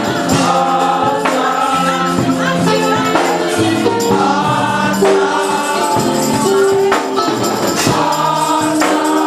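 Live gospel worship music: a choir singing over sustained instrumental chords, with a tambourine shaking.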